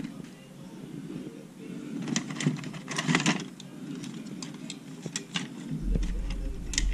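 Handling noises: scattered light clicks and rustles, bunched about two to three seconds in and again near the end, over a steady low hum.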